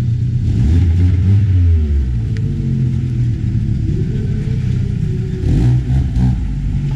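Car audio system's subwoofers playing loud, bass-heavy music, the deep notes stepping and gliding in pitch.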